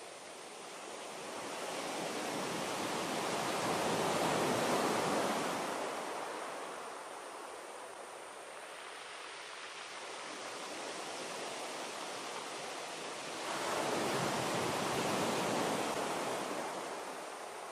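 Rushing water noise in the lobster's tank. It swells and fades, then swells again suddenly about two-thirds of the way in.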